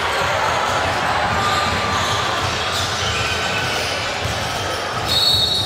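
Busy indoor basketball stadium: many basketballs bouncing on hardwood courts under the echoing chatter of a large crowd, with a short whistle blast near the end.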